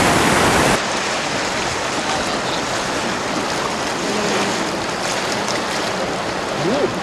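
Steady rushing of white-water river rapids pouring over rocks. It drops slightly in level about a second in.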